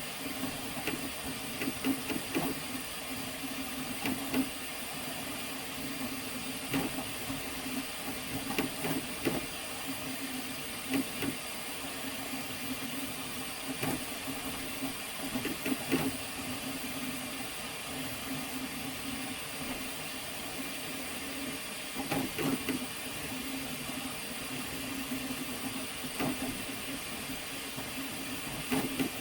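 Flashforge Adventurer 5M FDM 3D printer printing: a steady hum from its stepper motors under the hiss of its cooling fans, with short whirring bursts every second or two as the print head makes quick moves.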